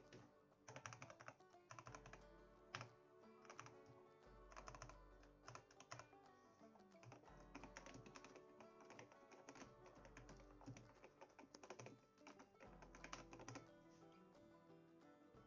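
Typing in bursts on a Zet Blade Optical mechanical keyboard with Kailh optical Black linear switches, fully lubed and fitted with O-rings: soft, damped keystrokes with no spring ping, stopping near the end. Background music plays throughout.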